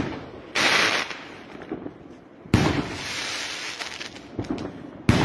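Fireworks going off: three sudden loud bangs, about half a second in, in the middle and near the end, the first two each followed by about a second of hissing, crackling noise that fades away.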